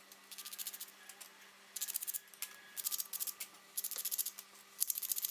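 Sandpaper rubbed quickly back and forth over the ends of thin steel rods to scuff their surface, in about five short bursts of rapid strokes with brief pauses between.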